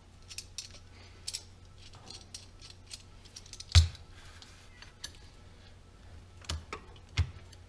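Light metallic clicks and clacks of hand tools and the variator fan being handled on a GY6 150 engine's CVT side, with a sharp knock about four seconds in and two more near the end.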